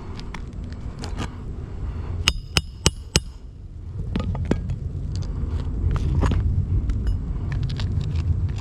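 Four sharp, ringing clinks in quick succession a little over two seconds in, amid scattered scuffs and clicks over a low rumble that grows louder partway through.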